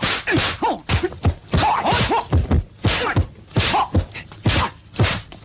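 A rapid, uneven series of thumps and whacks, about two or three a second, with short cries that rise and fall between them, as cats scuffle.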